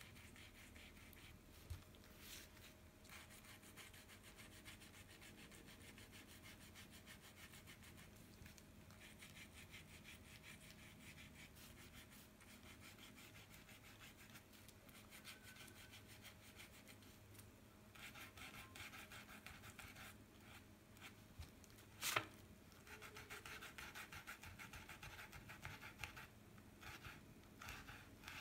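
Faint, rapid scrubbing of a paintbrush on paper as the colour is blended, heavier in stretches in the second half. There is one sharp click about two-thirds of the way through, over a low steady hum.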